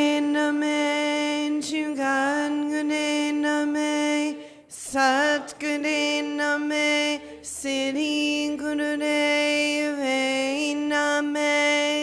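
A woman's solo voice chanting a mantra into a microphone, holding long notes on a near-steady pitch, in phrases with a short break for breath about four and a half seconds in.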